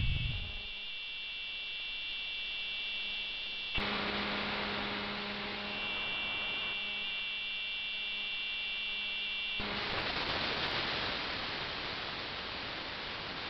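AM-demodulated audio from a software-defined radio receiver: a steady low hum with a cluster of high whining tones over hiss. It changes abruptly as the tuning moves, about four seconds in and again near ten seconds, where the tones drop out into a broad hiss.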